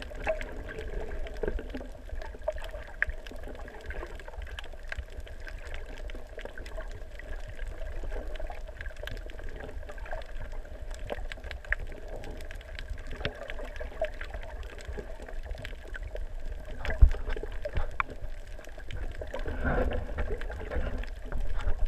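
Underwater sound as picked up by an action camera in its waterproof housing: a low muffled rumble with faint steady hums and scattered crackling clicks. One loud knock comes about seventeen seconds in.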